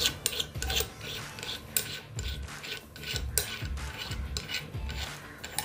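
Light metal clicks and scraping as the chrome post of a microscope boom stand is twisted by hand into its holder on the arm.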